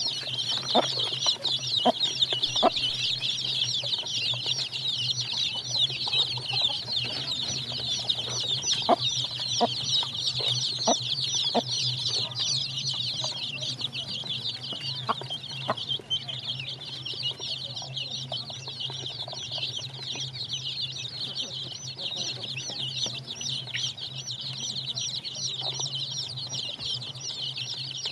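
A brood of chicks peeping constantly in a dense, high-pitched chorus as they feed. Scattered light taps of beaks pecking at the wooden feeder come mostly in the first half.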